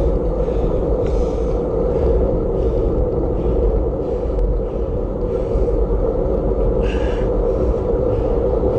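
Steady wind and road rumble on a camera riding along on a bicycle, with faint soft hisses recurring about every 0.7 s.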